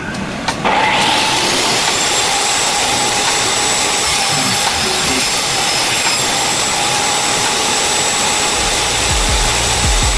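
Milwaukee 18V cordless belt sander running steadily at full speed, its motor whine holding a steady pitch over the hiss of the belt; it starts suddenly about half a second in.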